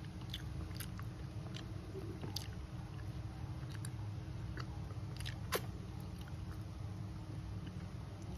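Close-up mouth sounds of someone chewing and crunching a meal of duck and rice: scattered sharp clicks and crunches, the sharpest about five and a half seconds in, over a steady low hum.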